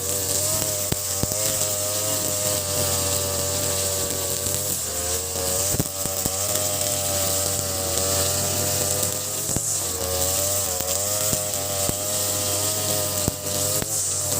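Ogawa BG330 brush cutter's 33cc two-stroke engine, fitted with a 43cc carburettor, running steadily at high revs while cutting grass. Its pitch sags and recovers briefly a couple of times, with scattered short ticks.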